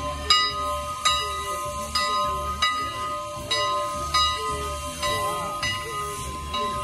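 Steam locomotive bell ringing in steady strokes a little faster than once a second, each stroke ringing on, over hissing steam as the engine eases onto its coach to couple.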